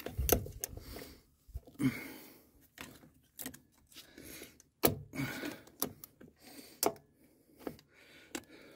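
Scattered metallic clicks and taps of needle-nose pliers working a hose clamp on the rubber fuel hose at an ATV carburetor, at irregular intervals, the sharpest about halfway through.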